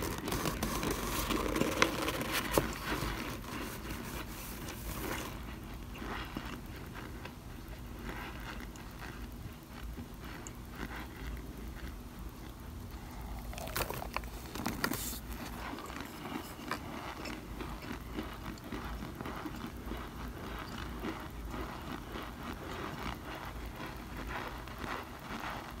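Cornstarch chunks giving light crunches and squeaks: a run of small crackles and scrapes, busiest in the first few seconds and again briefly around the middle.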